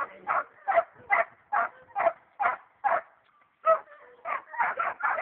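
Hog dogs baying at a cornered hog: a quick, regular string of short barks, about two to three a second, with a slight gap near the middle.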